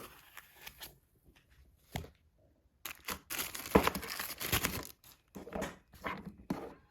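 Packaging being handled and unwrapped: crinkling and tearing of wrapping with scattered clicks and knocks. The sound is busiest for a couple of seconds in the middle.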